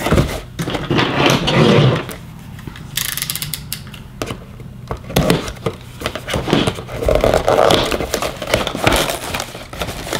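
Packaging rustling and scraping, with many sharp clicks and knocks, as items are handled and unwrapped out of a box.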